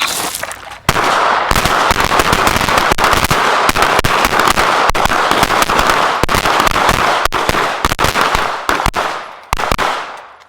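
Rapid handgun fire from several shooters on a firing line. The shots overlap densely, starting about a second in and thinning out near the end, as the shooters run a box drill.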